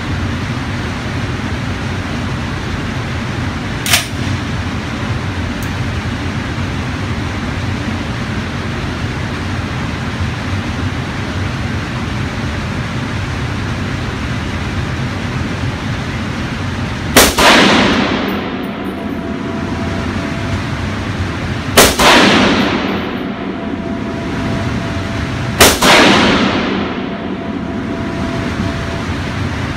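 A .308 rifle fired three times, about four seconds apart. Each shot is a loud crack with a long echo off the walls of the indoor range. A single sharp click comes about four seconds in, and a steady background noise runs underneath.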